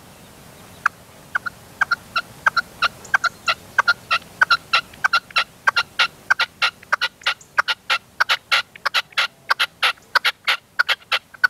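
Male red-legged partridge kept as a decoy (reclamo) calling from its cage: a long run of short, sharp notes that starts sparse about a second in and quickens to a steady three or four a second.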